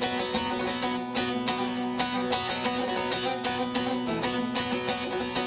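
Instrumental break in a Black Sea folk song: plucked string instruments playing a quick, steady rhythm over held notes, with no singing.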